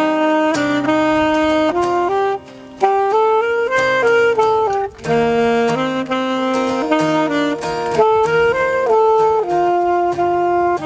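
Music: a saxophone plays a melody of held notes over plucked guitar accompaniment, with a short break about two seconds in.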